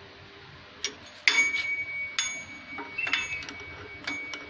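A series of sharp metallic clicks and clinks, some leaving a brief ringing tone, as parts are fitted by hand into a drill press chuck; the loudest click comes about a second in. The drill press motor is not running.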